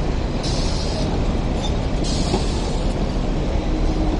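Hong Kong double-decker electric tram rolling slowly past, a steady low rumble of its running gear on the street rails, with two short spells of hiss about half a second and two seconds in.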